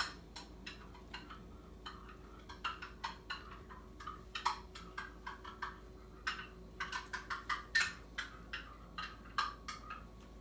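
Small spoon stirring sweetener into a cup of espresso, clinking against the cup in quick, irregular ticks.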